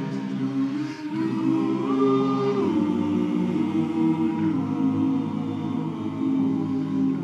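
Barbershop chorus singing a cappella, holding sustained close-harmony chords without clear words. The chord changes every second or so, with a higher line rising above the others about two seconds in.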